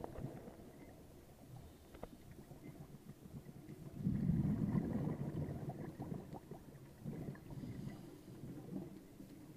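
Scuba diver's exhaled bubbles from the regulator, a bubbling rumble heard underwater: one strong exhalation about four seconds in lasting about a second and a half, with weaker gurgling surges later and a few small clicks.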